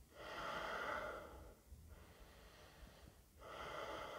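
A man breathing slowly and audibly through the nose: one long breath over the first second and a half, then another starting a little past three seconds in.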